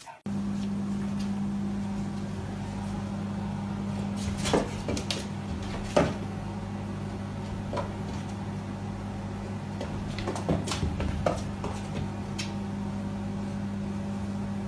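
A steady low hum with a few light, sharp taps scattered through it as a cat paws at a mirror.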